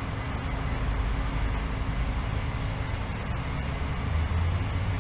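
Case IH rotary combines running across a soybean field, a steady low engine drone with a constant hum that swells a little about four seconds in.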